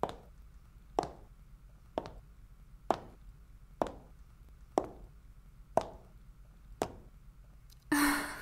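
Soft, sharp taps about once a second, eight in a row with slightly uneven spacing, then a louder breathy rush near the end.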